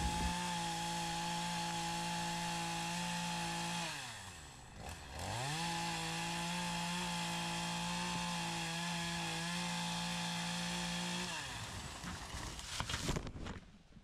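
Chainsaw running at high, steady revs. About four seconds in, the revs drop and climb back up. Near eleven seconds the saw winds down, followed by a few short, uneven louder noises.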